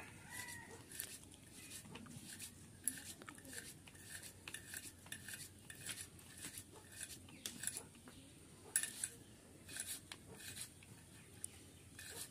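Fingertips pressing and rolling small pieces of rice-flour dough against a carved wooden board: soft, irregular scrapes and light clicks.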